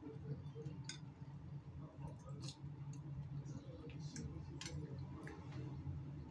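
Metal spoon clinking and scraping against a bowl a few times while someone chews a mouthful, over a steady low hum.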